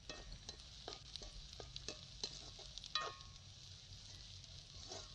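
A ladle scraping and knocking against a big metal pot as onions, garlic and curry leaves are stirred, with a faint sizzle of frying in coconut oil. The knocks come irregularly, the loudest about three seconds in.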